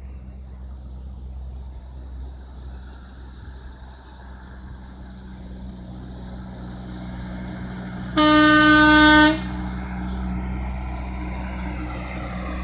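Cargo truck climbing a hairpin bend, its engine running and growing louder as it approaches. About two-thirds of the way through, the horn sounds once, a loud blast of about a second.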